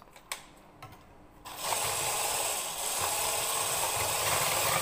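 A few light clicks, then about a second and a half in an electric stick mixer with a whisk attachment starts up and runs steadily with a faint high whine, whisking beaten eggs in a plastic bowl.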